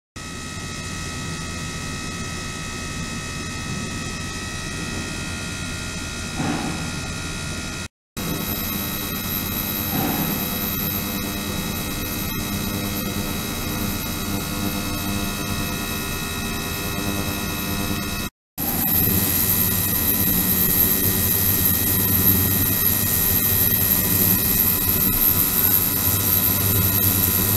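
Ultrasonic system (72 kHz, 300 W) running its transducer in water in a resin container: a steady hiss and hum carrying many fixed high tones. It cuts out briefly twice, and after the second break it runs louder with a strong high whine.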